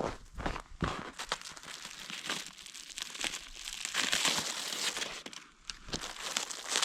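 Paper and plastic wrapping being crinkled and torn open by hand around a string of firecrackers: an irregular rustling with many small crackles.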